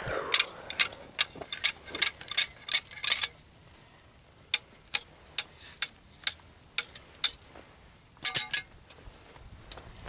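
Steel foothold trap and its chain clinking and rattling as they are handled and set. A quick run of sharp metallic clicks fills the first three seconds, then come scattered single clicks and a short burst near the end.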